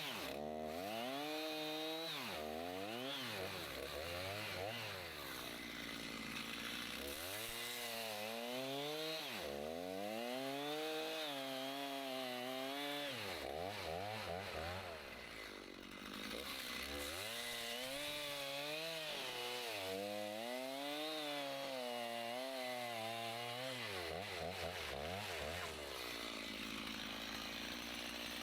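Stihl Farmboss MS290 two-stroke chainsaw cutting pine logs into rounds, its engine pitch repeatedly rising and falling as it revs and loads up in the wood. Near the middle it drops briefly toward idle before revving again.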